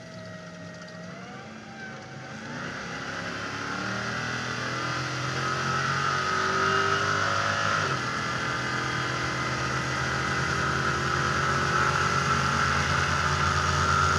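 Stadium Super Truck's V8 engine accelerating, heard from a roof-mounted camera: quieter at first, it builds steadily over the first few seconds and holds at a high, steady level, with a short dip about eight seconds in.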